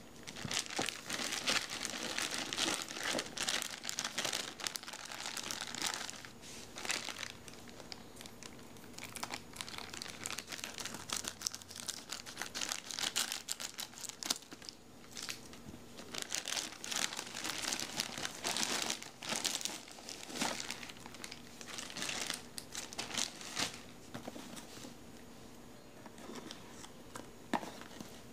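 Plastic courier mailer bag crinkling and rustling in irregular bursts as it is cut open with scissors and pulled apart by hand.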